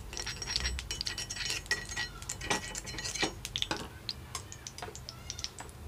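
Irregular light clicks and short metallic clinks from a metal paniyaram (appe) pan as oil is spread in its cups.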